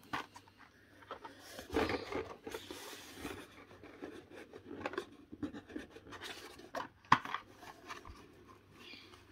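Cardboard-backed Hot Wheels blister cards and a cardboard shipping box being handled: paper and plastic scraping and rubbing as one card is put away and the next is pulled out of the box. There are scattered clicks, with one sharp tap about seven seconds in.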